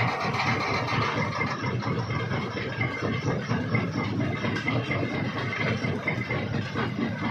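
Stone jaw crusher running, a steady mechanical rumble dense with the crack and rattle of rock being broken between the jaws.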